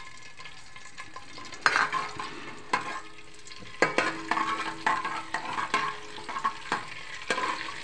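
A metal slotted spoon stirring whole spices in oil in an aluminium pot, knocking and scraping against the pot about once a second, over a faint sizzle. The oil has cooled a little, so the cumin is not yet crackling.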